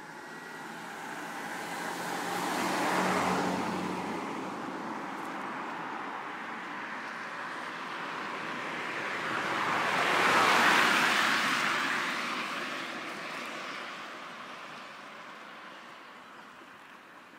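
Two cars passing by on a road, one a few seconds in and a louder one about ten seconds in, each a rising then fading rush of tyre and engine noise.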